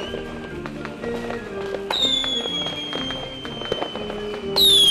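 Fireworks display heard over a music soundtrack: scattered cracks and pops, with a long falling whistle about two seconds in and a louder whistle near the end.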